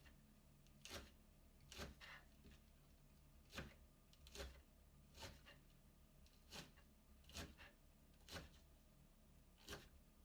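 Knife shredding a head of cabbage into thin strips. Each stroke gives a short, crisp crunch, coming steadily about once a second.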